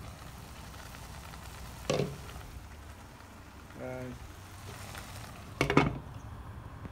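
Chicken wings and chicken livers sizzling in a frying pan as they come to a boil. A glass pan lid knocks once about two seconds in and clatters onto the pan near the end.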